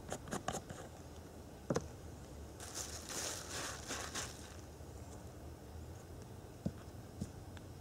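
A few light clicks and taps from handling a container and its lid, then, about two and a half seconds in, a stretch of thin plastic bag crinkling as the bag is opened and handled, with a couple more small taps near the end. All of it is faint.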